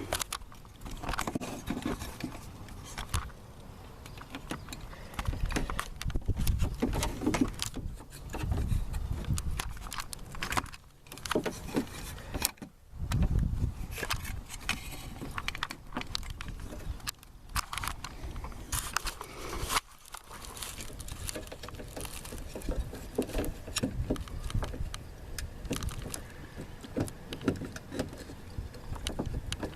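Metal door-handle linkage rods and plastic clips rattling and clicking inside a 1999 Chevy Tahoe's door while a rod is worked into its clip, with irregular knocks and handling noise. A few heavier thumps come around a quarter of the way in and again near the middle.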